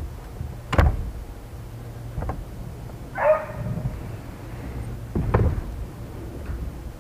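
Three dull knocks from handling gear on the boat, with a short pitched squeak-like sound about three seconds in, over a low steady hum.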